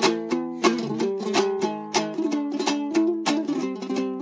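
Background music on a plucked string instrument, playing a melody in quick, evenly struck notes, about three a second.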